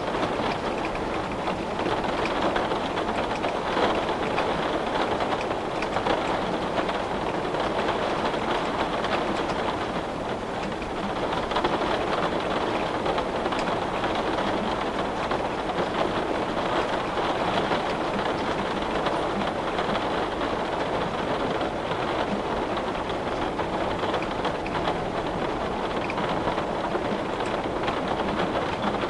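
Steady rain falling: an even, unbroken hiss with no let-up.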